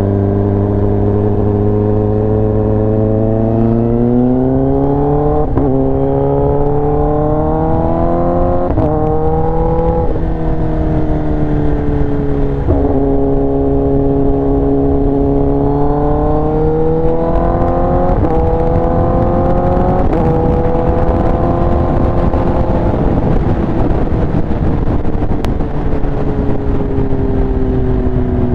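Kawasaki ZX-10R's inline-four engine through an SC-Project exhaust, pulling up through the gears: the pitch climbs and drops back with each quick shift several times, then falls slowly as the bike rolls off the throttle near the end.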